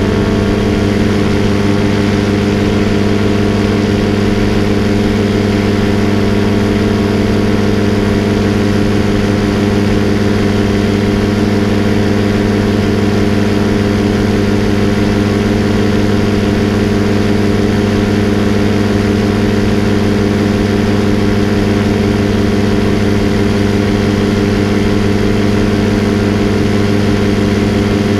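Paramotor engine and propeller running at a steady throttle in flight, a constant unchanging drone heard from on board.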